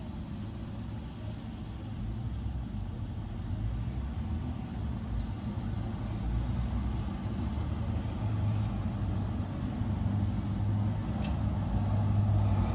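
Low, steady rumble of a running engine, like a vehicle idling close by, slowly growing louder, with a few faint clicks.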